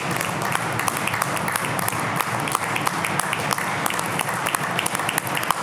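Members of a legislature applauding: many hands clapping steadily.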